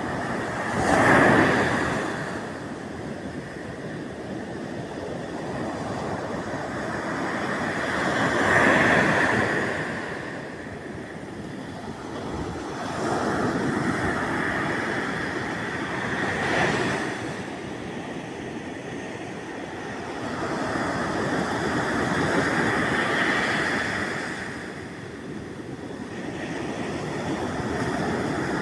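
Sea waves breaking on the shore: a steady rush of surf that swells with each breaker and falls back. The loudest breakers come about a second in and about nine seconds in.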